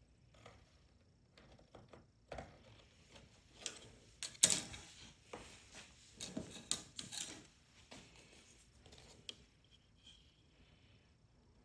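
Faint, scattered taps, clicks and rubbing of wooden workpieces being handled on a workbench. The loudest knock comes a little under halfway through. No saw is running.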